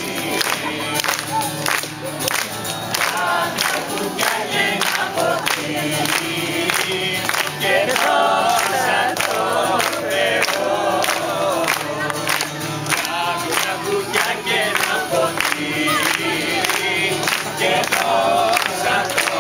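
A group of voices singing a song together to a strummed acoustic guitar, with steady rhythmic clapping keeping the beat.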